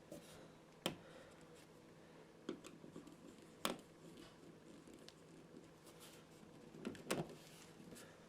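A handful of sharp clicks and taps of a screwdriver working a screw into a light switch cover plate, spaced a second or more apart, over a faint steady hum.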